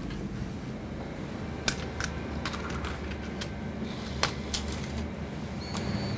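About half a dozen sharp, separate clicks of a computer keyboard and mouse in use, over a steady low hum of equipment.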